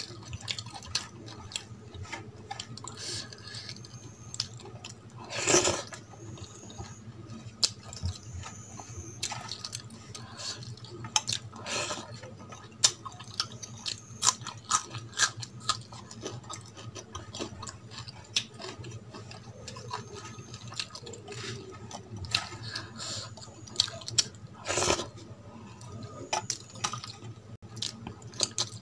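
Close-miked wet eating sounds: chewing, lip smacks and many small mouth clicks as rice and curry are eaten by hand, with the squish of fingers in the wet rice. Two louder, longer wet sounds stand out, one about a fifth of the way through and one near the end.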